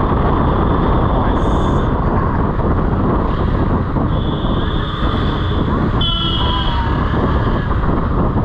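Motorcycle running through town traffic with a heavy wind rumble on the microphone. Vehicle horns honk a few times: one near the start, one about four seconds in and one about six seconds in.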